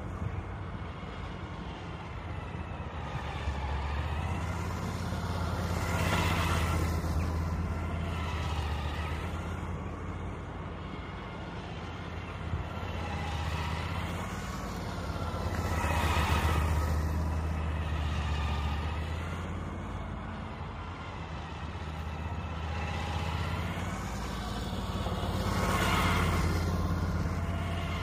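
Large motorcycle running at low speed while it circles, its engine hum and tyre hiss swelling as it passes close three times, about ten seconds apart.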